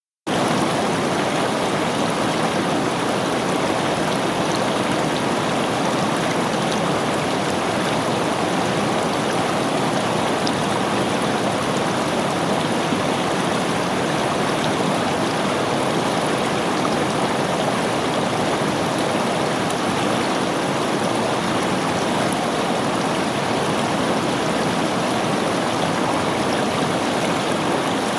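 River water flowing over rocks: a steady, even rushing with no breaks.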